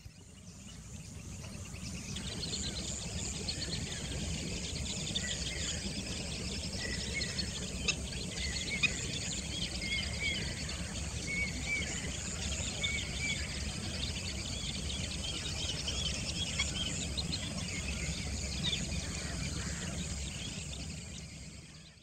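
Natural ambience of many small birds chirping and insects calling, over a low steady hum. It fades in over the first two seconds and fades out at the end.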